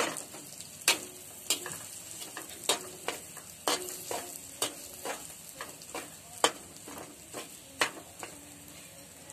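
Metal spoon and perforated ladle scraping and knocking against a tawa while stirring mashed taro root frying in a little oil, with a faint steady sizzle underneath. The knocks come irregularly, about one a second.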